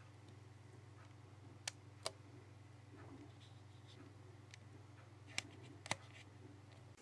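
Near silence: a steady low electrical hum with four faint, sharp clicks, two of them about two seconds in and two more about five and a half seconds in.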